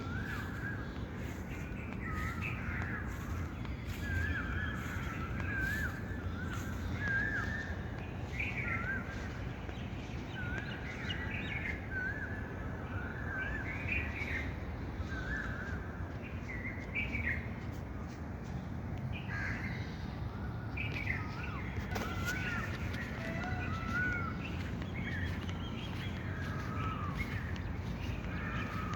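Many birds chirping and calling: short, quick, warbling notes coming one after another, over a steady low background rumble.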